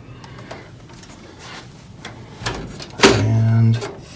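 Soft taps and scrapes as a motherboard is handled and fitted into an NZXT H510 PC case, with a sharper click about three seconds in. Right after the click a man says a drawn-out "and".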